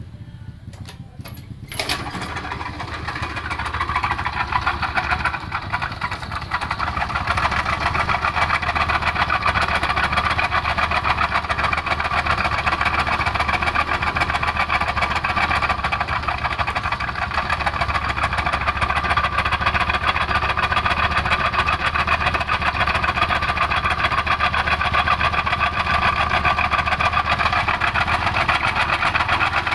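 Honda Vario scooter engine started about two seconds in after a few clicks, then idling steadily with a rough, busy clatter that sounds like a sewing machine, the sign of the rough-running engine it was brought in for.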